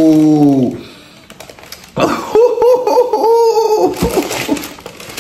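A man's drawn-out vocal note trailing off, then after a short pause a run of excited laughter, choppy and pitched, about two seconds in. A brief rustle follows near the end.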